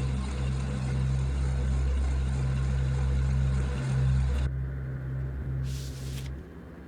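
A loud, steady low rumbling drone, like an engine, with a hiss over it that cuts off abruptly about four and a half seconds in; a short burst of high hiss follows near the end.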